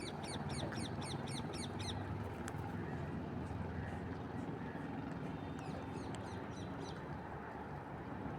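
Parrots chirping in quick series of short high chirps, about five a second. One bout comes at the start and another about six seconds in, over a steady low hum.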